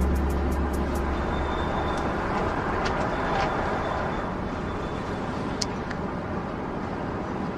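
Steady traffic noise with a low hum during the first two seconds and a few faint clicks.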